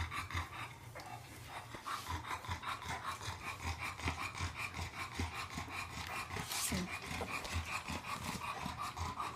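Small dogs, a French bulldog and a puppy, breathing and snuffling close to the microphone, heard as a run of soft low puffs roughly twice a second.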